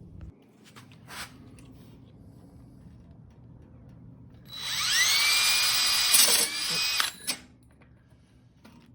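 Power drill with a hole saw spinning up with a rising whine, running steadily about two seconds, then briefly again before stopping, as it tries to enlarge a hole in a golf cart floorboard where the pilot bit has nothing to bite into.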